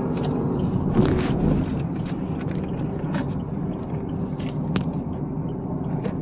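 Car cabin noise while driving slowly: steady engine and road rumble, with a few faint clicks.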